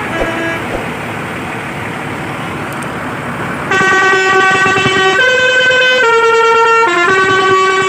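Tour bus basuri musical horn playing a short tune, a run of about five held notes stepping up and down in pitch, starting loudly about halfway through over steady street noise.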